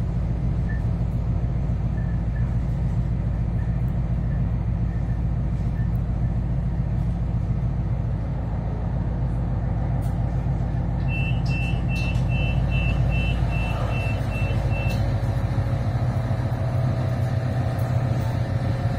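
Adelaide 3000 class diesel-electric railcar running steadily from on board as it stops at a station. About 11 s in, a row of short high beeps, about two a second for some four seconds, from the railcar's door warning.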